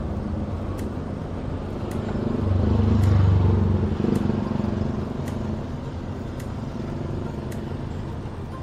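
Motor vehicle engines running in road traffic, with one engine swelling louder and deeper about two and a half seconds in, then easing off. A faint sharp tick repeats about once a second.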